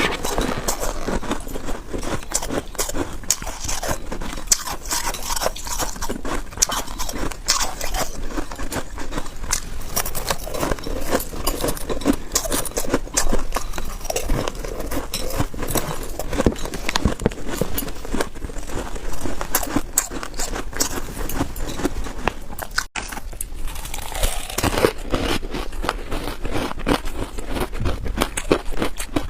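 Freezer frost being bitten and chewed: dense, continuous crunching and crackling.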